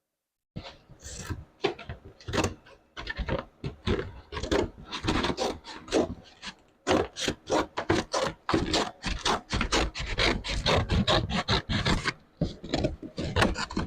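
A hand tool rasping back and forth on sheet metal in quick repeated strokes, about two to three a second, starting about half a second in.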